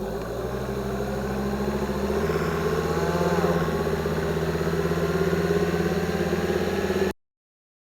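2005 Volvo XC90 2.5T's drivetrain heard through a contact microphone on the transfer case as the car pulls away from a stop: the turbo five-cylinder engine hums steadily, and a thin whine rises slowly in pitch through the middle and later part, the suspected gear whine from the transfer case or bevel gear. The sound cuts off abruptly near the end.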